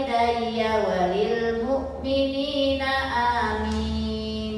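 A woman chanting a prayer in long, drawn-out notes, in two phrases, her pitch dipping about a second in.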